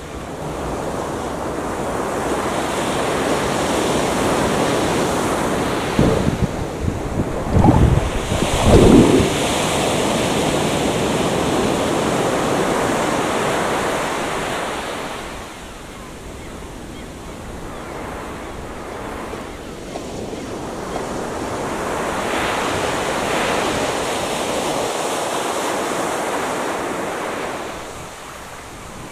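Ocean surf washing in long swells: the first builds and falls away about fifteen seconds in, and the second rises again around twenty seconds. A few loud gusts of wind hit the microphone between about six and nine seconds in.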